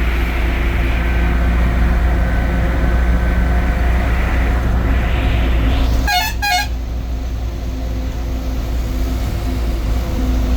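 Steady drone of a bus engine with two short horn toots in quick succession about six seconds in.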